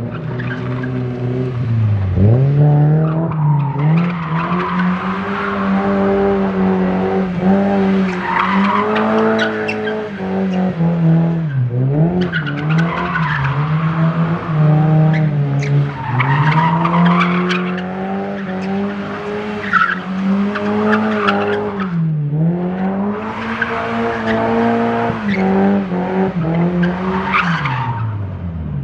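A car drifting: its engine is held high in the revs, dropping sharply and climbing back three times, while the tyres squeal in long swelling waves.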